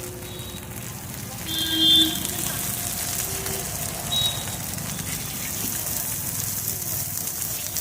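Food frying in a hot wok at a street-food stall, a steady sizzling hiss, with a few brief faint tones from voices or clinks in the background.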